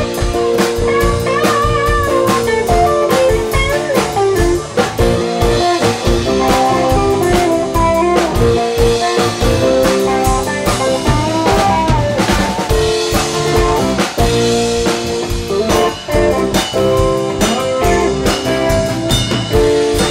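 Live rock band playing an instrumental passage: an electric guitar solo with bent notes over a drum kit and held keyboard chords.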